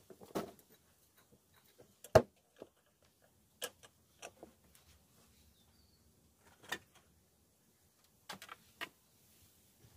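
Scattered clicks and knocks of cooking utensils: chopsticks tapping a wok and a wire grill rack being handled on a clay stove. The loudest knock comes about two seconds in, and a few more are spread through the rest.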